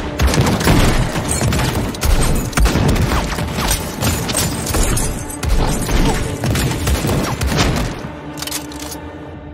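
Sustained volley of gunfire from several Winchester rifles firing together, many shots overlapping in quick succession, with a film score underneath. The shooting thins out and grows quieter near the end.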